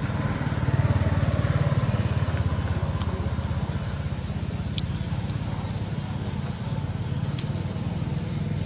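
An engine running steadily, a low even drone with a fast pulse, under a thin steady high tone. A few light clicks, the sharpest about seven seconds in.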